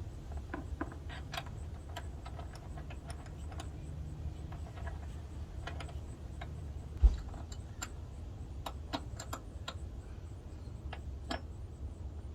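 Scattered light metallic clicks and taps of an Allen wrench and bolts while an aluminum hood latch is tightened down, with one dull thump about seven seconds in, over a low steady rumble.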